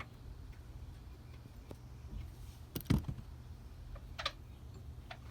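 A few scattered metal clicks and ticks from a ratchet and socket working the seat bolts, with one louder knock about three seconds in, over a steady low hum.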